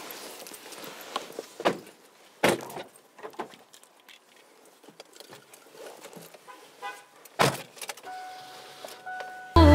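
Car doors being handled and shut: one solid door slam about two and a half seconds in and another about seven and a half seconds in, with lighter clunks and rustling between them as people settle into the seats. Music starts abruptly at the very end.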